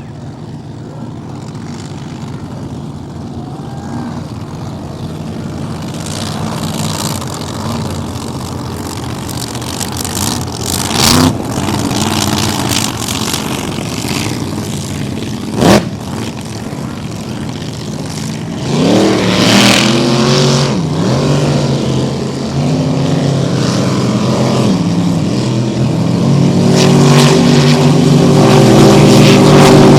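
Racing drag-boat engines running and revving, growing steadily louder, with two sharp cracks midway. From about two-thirds of the way in the engine pitch sweeps up and down, then holds a loud steady run near the end.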